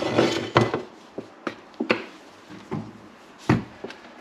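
A string of irregular knocks and clicks as food containers are handled and set down on a kitchen worktop, the loudest knock about three and a half seconds in.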